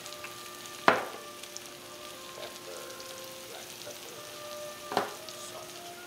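Sliced mushrooms sizzling in a frying pan on the stove as spices are shaken over them, with two sharp knocks, one about a second in and one near the end.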